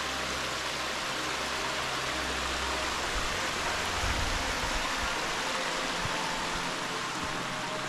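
Mountain stream rushing: a steady, even rush of water that cuts in suddenly.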